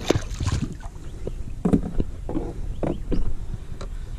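Several irregular knocks and bumps on a kayak's hull.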